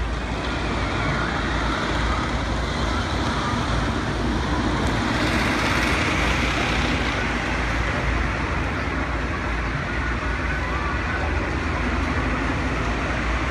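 Steady rumble of a wooden roller coaster train running on its track, swelling somewhat in the middle.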